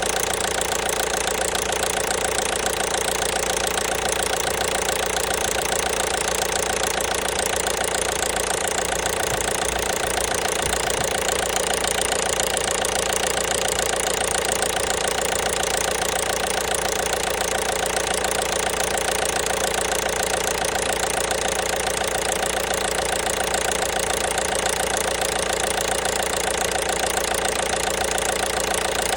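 1.5 BlueHDi (DV5RC) four-cylinder turbodiesel engine idling steadily with a rapid, even knocking, the engine knock the owner is recording.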